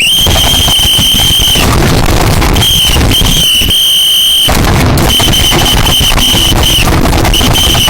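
Blaring, distorted alarm noise: a piercing steady high tone that holds, cuts out and comes back several times, over a loud dense rumble.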